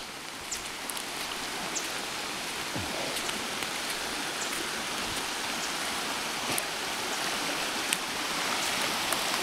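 Steady rushing of a flood-swollen creek running high and muddy, growing a little louder toward the end, with a few faint ticks over it.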